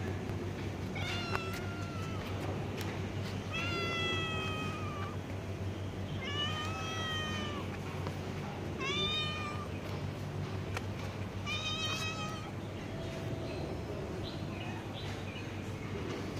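Black domestic cat meowing repeatedly: about five drawn-out meows, each roughly a second long, spaced a couple of seconds apart.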